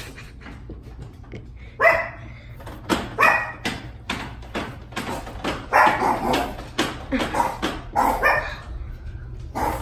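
Dog barking: a run of separate short barks spread a second or so apart.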